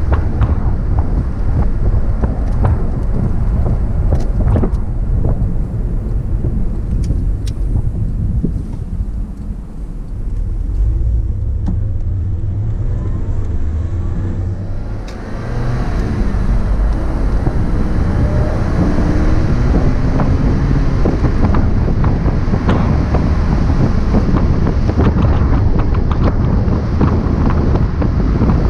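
Porsche Boxster's flat-six engine and wind noise over the open cockpit while driving with the top down. About fifteen seconds in, the sound drops briefly during a gear change, then the engine note climbs again as the car pulls away in the next gear.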